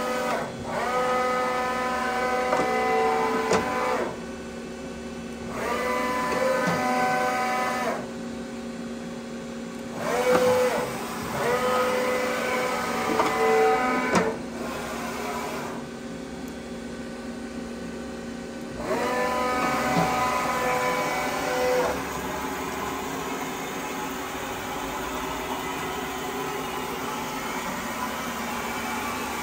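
Axis servo drives of a Sunfirm CHT 5680 CNC lathe moving the turret carriage, heard as four separate runs of a pitched motor whine. Each whine rises as the move starts, holds steady for two to four seconds and stops, over a steady machine hum.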